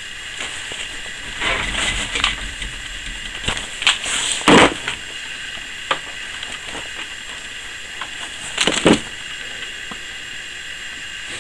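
A pipe cutter converted into a wire stripper being worked on a cable, making scattered scrapes and clicks over a steady hiss. The loudest scrapes come about four and a half seconds in and again just before nine seconds.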